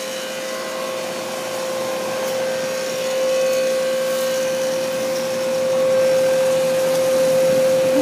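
Outdoor unit of a 2009 York Latitude heat pump running in heat mode: the fan blowing air over the coil with a steady hum from the compressor, getting a little louder toward the end.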